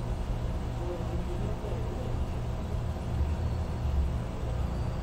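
Steady low background rumble with no speech, such as room or street noise.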